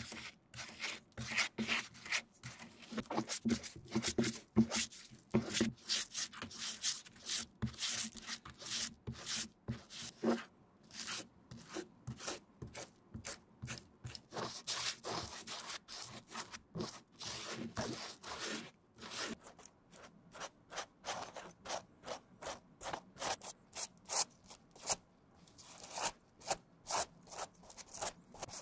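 Stiff-bristled glue brush scrubbing shoe cement onto a rubber cupsole and the lasted edge of a leather sneaker upper, in quick, uneven rubbing strokes, several a second.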